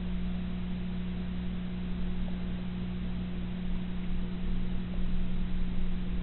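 Aquarium pump running: a steady low hum with a faint hiss above it.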